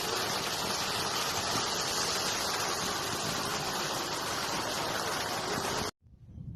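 Steady rush of a small mountain river's water, loud and even. It cuts off abruptly about six seconds in, leaving only faint quieter sounds.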